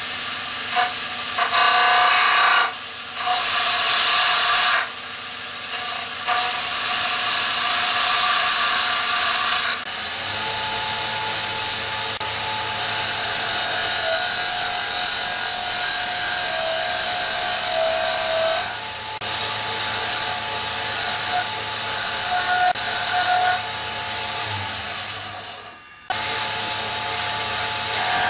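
A Pinnacle wood lathe runs while a hand-held turning tool cuts into the spinning wooden pepper-mill blank. The cutting hiss stops and starts every few seconds as the tool is lifted and set back to the wood, over a steady low hum from the lathe.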